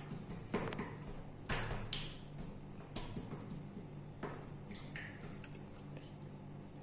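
Slime being kneaded and pressed by hand on a tabletop: faint, irregular squishes and sticky clicks, the strongest about a second and a half in, over a steady low hum.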